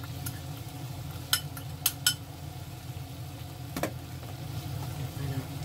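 A few light clicks and taps of a small dish as sugar is shaken out of it onto chicken pieces in a frying pan: three close together, then one more a couple of seconds later, over a steady low hum.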